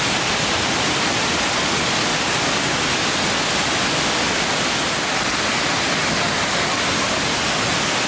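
Steady, unbroken rush of water, even and loud.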